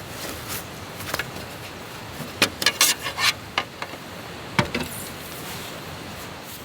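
A quick run of light clicks and clatter about two and a half seconds in, then a single sharper knock, over a faint steady background: objects being handled.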